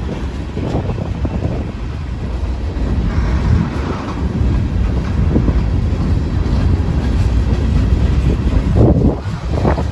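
Manifest freight train rolling past with a steady low rumble, and heavy wind buffeting on the microphone.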